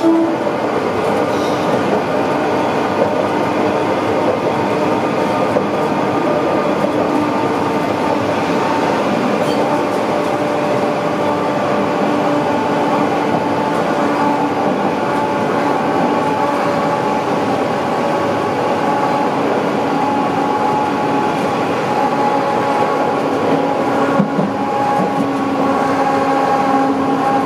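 Tram running along its track at steady speed, heard from inside the car: a steady rumble of wheels on rail with a hum of several held tones.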